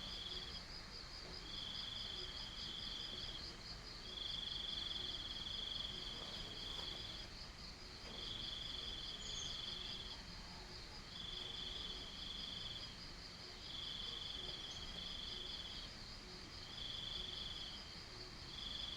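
Crickets and cicadas calling: one insect keeps up a steady, fast pulsing trill, while a second calls in high buzzing bouts of one to two seconds, repeating about every two to three seconds.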